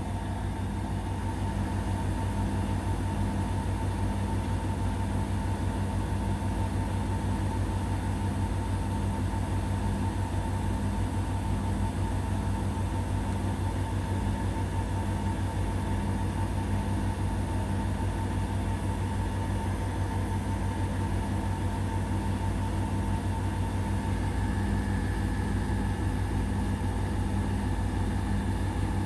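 Indesit BWE101683 front-loading washing machine in its final spin, holding steady at about 800 rpm: a constant motor hum with a steady whine and an even, regular pulsing from the turning drum.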